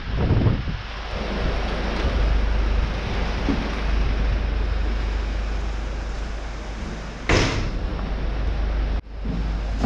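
Ambulance stretcher being wheeled along, a steady rumbling clatter of wheels and frame handled close to the microphone, with one sharp bang about seven seconds in.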